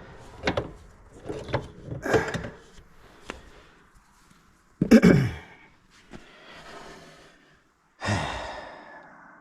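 Light clicks and knocks of metal parts and tools being handled on a drive shaft U-joint, with a loud short sound about five seconds in and a long breathy sigh that fades out near the end.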